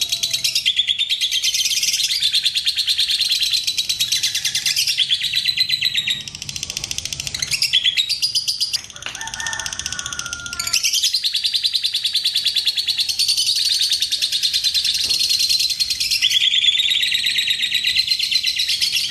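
Lovebird's long chattering song, the 'ngekek panjang' that keepers use as a lure: a very fast, high, pulsed trill held in long unbroken phrases, breaking into shorter, softer calls for a few seconds in the middle.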